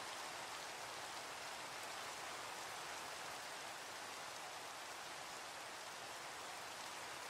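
Steady rain falling: an even, faint hiss with no breaks or claps of thunder.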